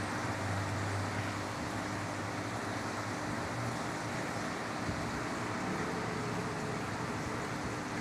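Aquarium waterfall fountain and air-stone bubble wall running: steady splashing and bubbling of water over a constant low pump hum.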